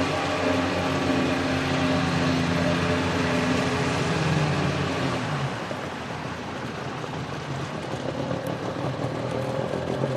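Sea-Doo Speedster jet boat engine running with the hiss of water and wind, then dropping in pitch about halfway through and settling to a lower, quieter idle.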